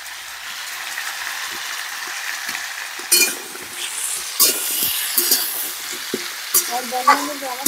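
Sliced sweet potatoes frying in hot oil in a steel kadhai, a steady sizzle. From about three seconds in, a steel spatula stirs them, scraping and knocking against the pan several times.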